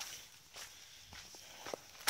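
Running footfalls and swishing undergrowth as someone runs through rough, swampy brush: a few uneven thumps over a faint steady hiss.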